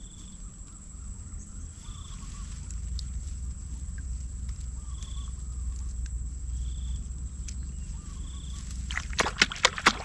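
Outdoor marsh ambience with a low rumble and a faint short high call repeating every second or two. Near the end comes a quick run of about ten loud, sharp clicks.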